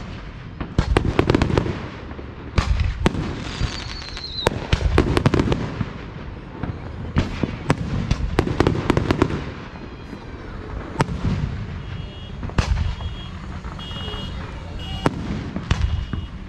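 Aerial fireworks shells bursting overhead: a rapid, irregular series of sharp bangs, with low rumbling echoes rolling between them.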